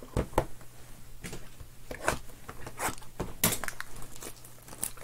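Clear plastic wrapping being pulled off trading-card boxes by hand, giving irregular crinkles and rustles.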